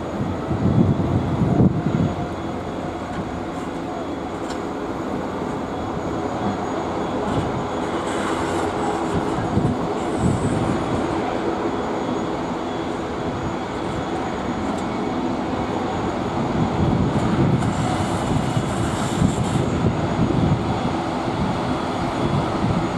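Singapore Airlines Boeing 787-10 airliner's jet engines running steadily as it rolls along the runway, a continuous rumble and rush of engine noise, with low swells about a second in and again later.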